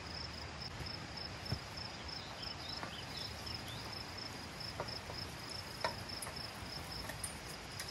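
Insect chirping outdoors, a steady high-pitched pulsing that repeats several times a second, with a few faint knocks and taps from rope and pipe being handled at the well.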